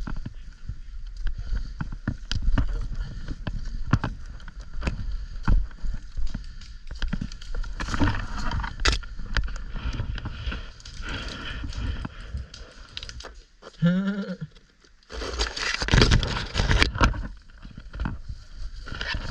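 Movement noise from an airsoft player walking with his gear: irregular clicks, scrapes and rustling, with wind rumble on the microphone. A short pitched call, like a voice, sounds about fourteen seconds in.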